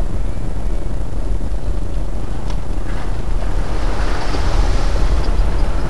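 Vehicle driving along a rough unpaved track, heard from inside the cab: a steady low rumble of engine and tyres, with a louder hiss swelling from about halfway through.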